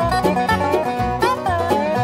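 Instrumental bluegrass music: banjo picking over a steady, bouncing bass line, with some sliding melody notes.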